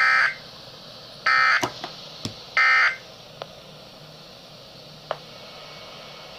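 Three short, identical bursts of buzzy emergency-alert data tones, about a second apart: the digital end-of-message code that closes an emergency weather bulletin. They are followed by faint broadcast hiss with a few small clicks.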